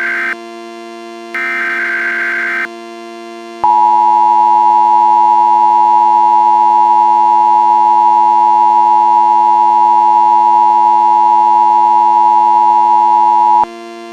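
Emergency Alert System SAME header data bursts: one ends about half a second in, and another lasts about a second and a half, starting a second later. Then comes the NOAA Weather Radio 1050 Hz warning alarm, a loud steady tone held for about ten seconds and cutting off just before the end. A steady synth drone of several low tones runs underneath.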